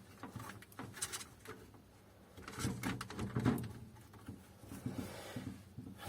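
Light clicks, taps and rubbing of plastic and metal parts being handled as the doctor blade is lifted off a Kyocera M2030 laser printer's developer unit.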